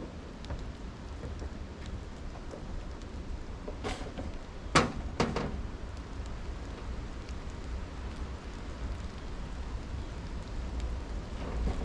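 Steady hiss of rain with a low rumble underneath. A few sharp knocks fall between about four and five and a half seconds in, the loudest near five seconds.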